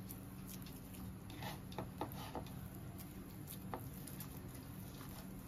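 Boiled potatoes squeezed and crumbled by hand in a bowl: faint, scattered soft squishes and small clicks.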